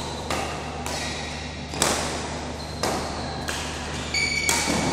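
Badminton racquets striking a shuttlecock during rallies: about four sharp hits a second or so apart, echoing in a large hall.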